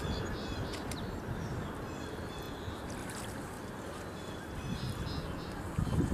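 Water sloshing and splashing around a person wading in chest waders through a shallow pond, with birds calling faintly several times in the distance.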